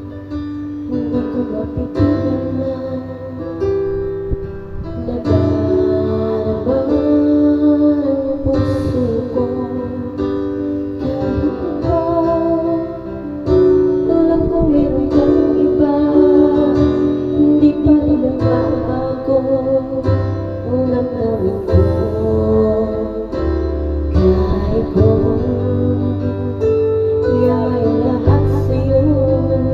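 Karaoke backing music with plucked acoustic guitar, and a woman singing along into a handheld microphone.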